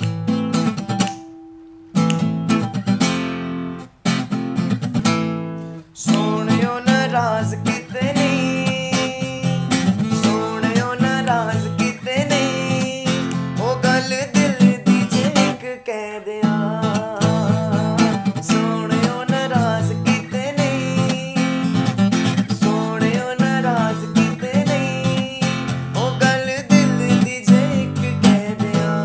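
Acoustic guitar playing chords. For the first six seconds or so a single chord is struck about every two seconds and left to ring out. After that the guitar settles into steady strumming under a man singing a melody.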